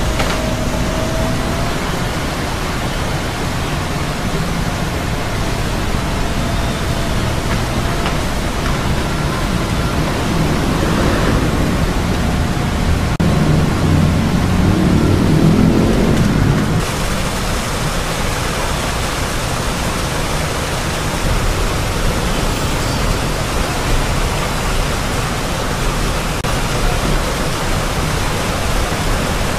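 Steady rushing noise of brown floodwater flowing at a river water gate. A deeper rumble swells a little before halfway, and the noise changes character abruptly a little past halfway.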